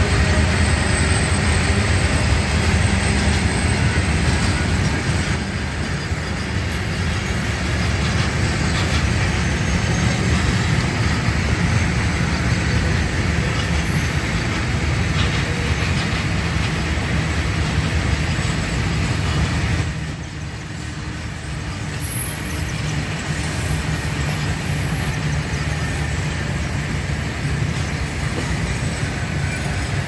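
Long freight train of covered box wagons rolling past, a steady rumble of wheels on the rails, with a brief louder burst about twenty seconds in.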